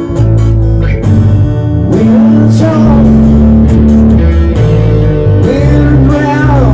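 Band music played live: guitar over a steady bass line, with a melody that bends and slides in pitch.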